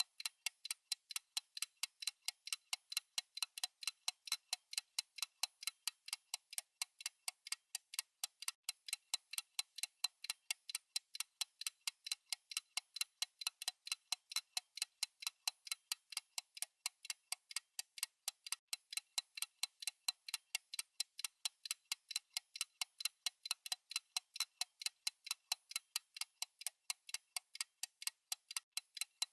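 Fast clock tick-tock of a countdown timer: a steady, even stream of short, crisp ticks with no bass, varying a little in loudness from tick to tick.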